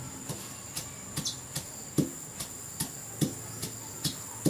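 A steady high-pitched insect drone, with a regular knocking beat about two and a half times a second over it.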